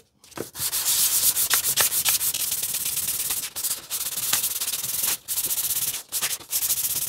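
A VW oil pump cover rubbed face-down on 500-grit sandpaper over a flat steel plate: a steady gritty scraping with a few brief pauses. The face is being lapped flat to remove pitting.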